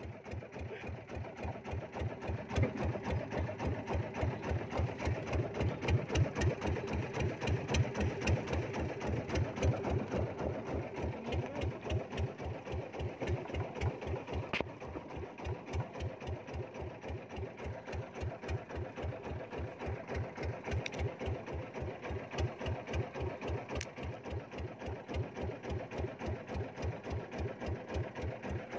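Small boat's engine running steadily at slow trolling speed, with a quick, even pulse.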